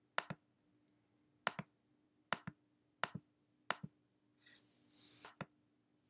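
Six short clicks at uneven intervals, each a quick pair of press and release: a computer mouse button being clicked while picking colours on screen. A faint soft rustle comes shortly before the last click.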